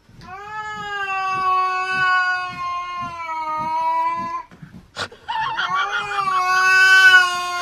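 Two long, drawn-out animal calls held at a steady pitch, the first about four seconds long, the second starting about five seconds in and shorter.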